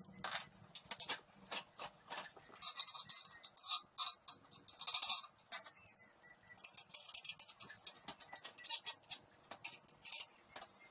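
Packing materials and small parts being handled during an unboxing: crinkly rustling of plastic or paper packaging, with many small clicks and knocks throughout.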